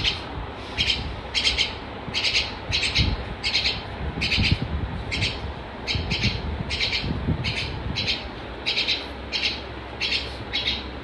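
A little bird cheeping over and over, about two short high chirps a second.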